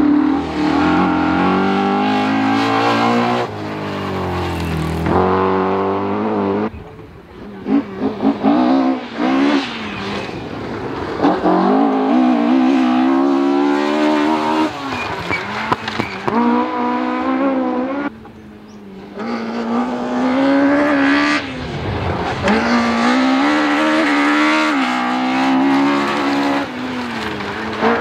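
Rally cars, among them a Mercedes 190 and a Ford Escort Mk2, passing flat out one after another on a loose gravel stage. Each engine revs hard, its pitch climbing and dropping with gear changes and throttle lifts. There is a burst of sharp cracks a little after seven seconds in.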